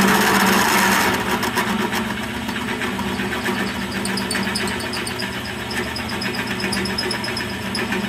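An old drill press running, its motor humming steadily, as the bit is fed down to cut a counterbore into an aluminium cylinder head. A rapid high ticking comes from the cut; the sound is loudest in the first second and settles slightly quieter after that.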